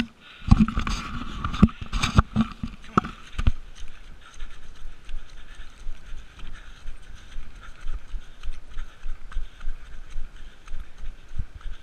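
Running footsteps on a muddy grass trail, thudding evenly about two to three times a second, with a runner and a dog on a lead moving together. A cluster of louder knocks and bumps in the first few seconds as the camera is jostled.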